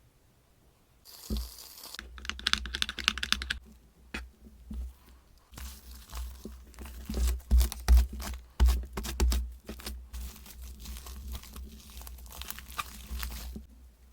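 Slime being mixed and squished, a dense run of sticky clicks, crackles and pops that starts about a second in and stops shortly before the end.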